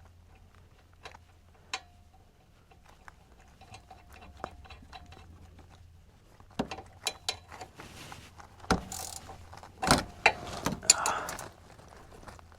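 Scattered clicks and clanks of hand tools and metal parts being handled, sparse at first, then a busier run of sharp knocks and rattles from about halfway in, loudest around ten seconds.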